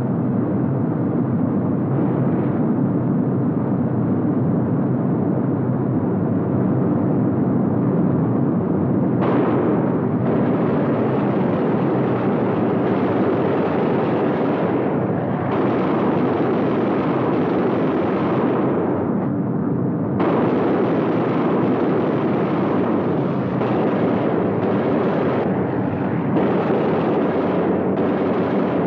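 Steady roar of a WWII bomber's engines in flight, with a harsher, denser layer that cuts in and out several times from about nine seconds in: bursts of the turret machine guns firing.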